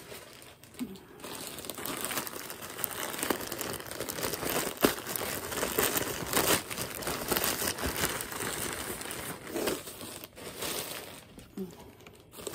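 Plastic Walmart shipping bag rustling and crackling as hands pull and work at it to open it, with many sharp crackles over a steady rustle.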